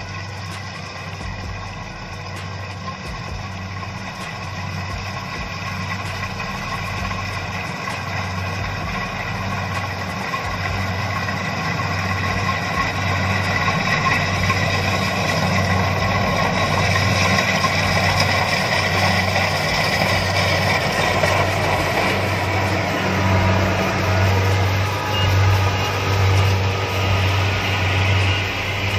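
Kubota DC-70 Plus rice combine harvester running as it cuts and threshes: a steady diesel engine hum with higher steady tones above it, growing louder as the machine draws closer.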